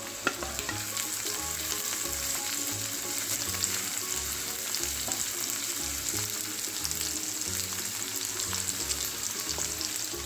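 Diced carrot and green capsicum sizzling in hot oil in a frying pan while being stirred with a spatula, a steady hiss with many small crackles.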